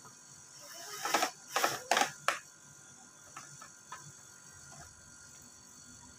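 Cordless drill-driver running in four short bursts, about a second to two and a half seconds in, driving screws into the scooter's plastic body panels, followed by faint ticks.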